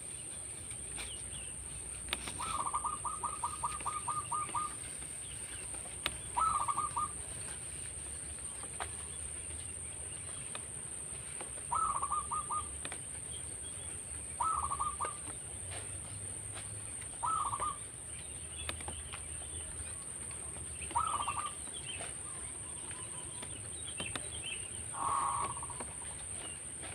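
Zebra dove (perkutut) calling: a long run of rapid cooing notes about two seconds in, then six shorter bursts of the same notes every few seconds. A steady high-pitched whine runs underneath.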